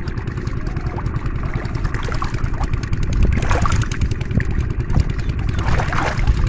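Water splashing twice, about three and a half and six seconds in, over a constant low rumble.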